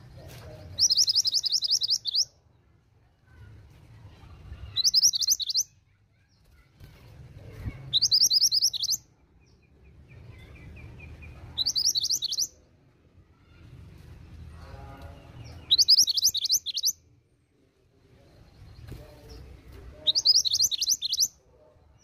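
Female mantenan gunung (a minivet) calling: six high, rapid trilled phrases, each about a second long, repeated every three to four seconds.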